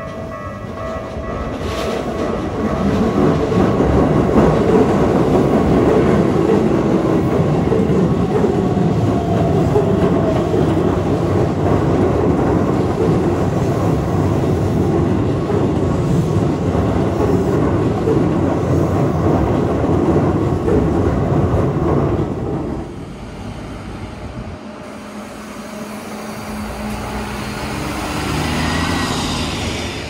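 A Keikyu electric train passing close by at the crossing, its wheels clattering over the rail joints with a heavy rumble. The rumble dies away a little after twenty seconds in, and a whining train sound swells again near the end.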